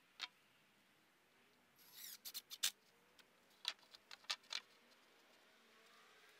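Sharp clicks and light knocks of a cordless drill being picked up and handled against wooden boards: one click, a quick rattle of clicks about two seconds in, then several more separate clicks. The drill's motor does not run.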